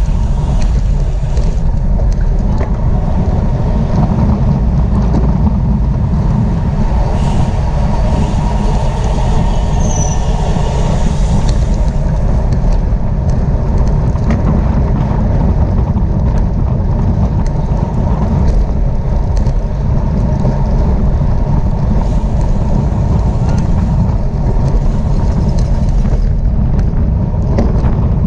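Steady wind rush over the microphone with the rumble of a road bicycle moving at speed, strongest in the low end and without a break.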